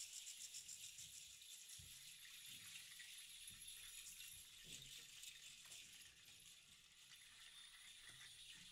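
Hand percussion shaken softly and faintly: a steady high hiss with quick, fine pulses, clearest in the first second or so.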